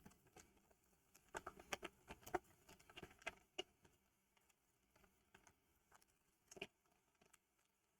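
Light clicks and taps of small objects being handled on a tabletop, a quick scatter of about a dozen between one and four seconds in and one more near seven seconds, against near silence.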